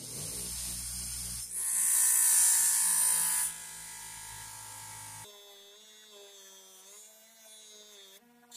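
Bench grinder running a 3M Scotch-Brite deburring wheel, with the steel head of a rusty claw hammer pressed against it. The motor hums up to speed, then a loud hissing, abrasive scrape runs for about two seconds as the steel meets the wheel, and it eases off into a quieter steady hum.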